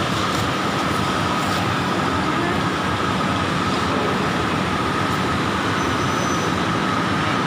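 Steady machinery noise with a constant high whine running through it.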